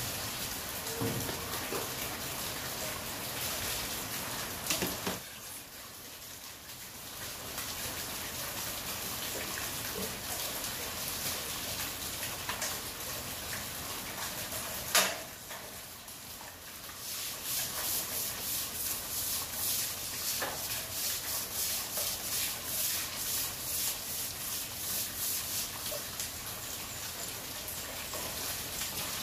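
Heavy rain falling on a paved yard and splashing into a water-filled tub, with a sharp knock about halfway through. In the second half, rhythmic strokes of a broom scrubbing the wet floor.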